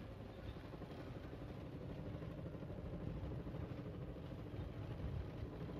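A vehicle engine running steadily, a low even rumble with a faint hum.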